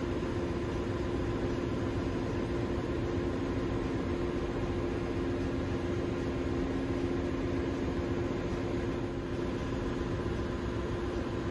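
Steady drone of a ship's engine-room machinery, an even mechanical hum with a couple of constant tones that does not change.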